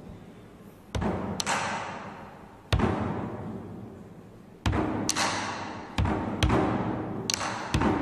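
Large drum struck with sticks in sparse, irregular beats, about nine hits, each ringing out and dying away slowly. A few of the hits have a brighter, sharper crack.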